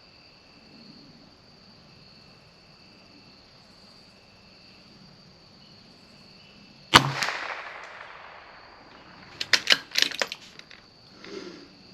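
A single shot from a CZ 457 .22 LR bolt-action rifle about seven seconds in, with a short ringing tail, followed a couple of seconds later by a quick run of metallic clicks as the bolt is worked to eject and chamber the next round. Crickets chirp steadily throughout.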